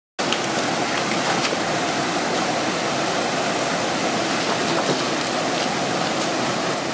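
Small waterfall pouring into a rock pool: a steady rush of water, with a few faint clicks over it.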